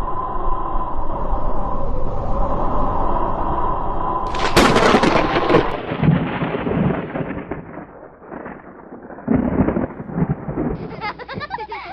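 A steady hum, then about four seconds in a sudden loud crash that rumbles away over the next few seconds, followed by shorter bursts of noise.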